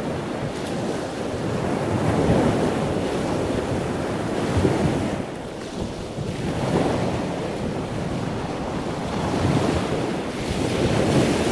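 Sea waves surging and washing against a rocky shore, with wind buffeting the microphone. The rushing noise swells and falls back every two to three seconds.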